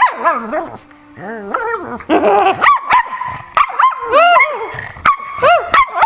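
Pug "talking": a string of whining, yowling dog calls that swoop up and down in pitch, following one another quickly, with a short lull about a second in.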